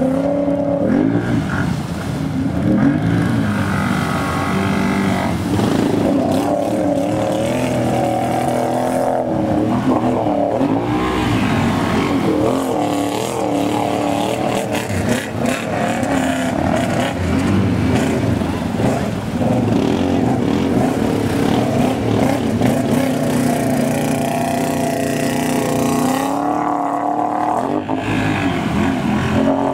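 ATV and side-by-side engines revving up and down over and over as the machines push through deep muddy water, with churning and splashing water beneath them.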